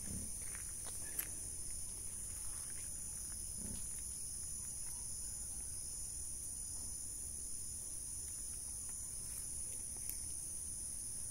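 A chorus of insects shrilling steadily, a continuous high-pitched drone in two close pitches, with a faint low rumble underneath.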